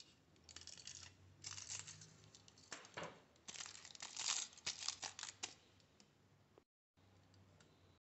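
Scissors snipping through folded aluminium foil, with the foil crinkling as it is handled: a series of short, faint crinkly bursts that stop about five and a half seconds in.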